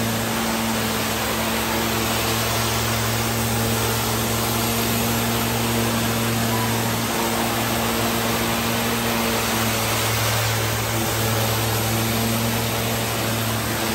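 Tile-and-grout cleaning machine running with its rotary spinner tool on a ceramic tile floor: a steady rush of spray and vacuum extraction over a low motor hum. The hum drops out briefly about halfway through.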